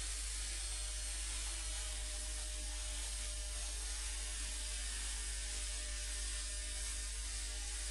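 Home-built RC model hovercraft running, its lift and thrust fans whirring at a steady pitch with a continuous low rumble.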